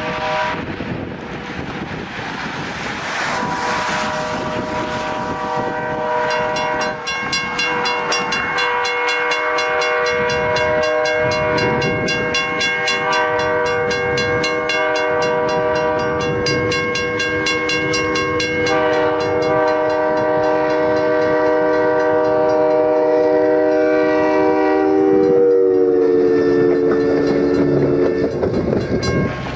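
Locomotive multi-note air horn held in one long chord over the noise of the moving train. The chord steps down in pitch about two-thirds of the way through and again near the end, then cuts off shortly before the end.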